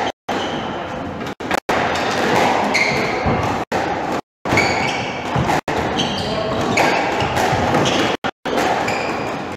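A squash rally: the ball struck by rackets and hitting the walls, with shoes squeaking on the wooden court floor.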